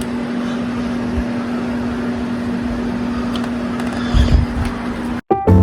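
Steady radio hiss with a constant low hum from a NOAA Weather Radio broadcast received over the air, in dead air between announcements. Just after five seconds it cuts off abruptly and music starts.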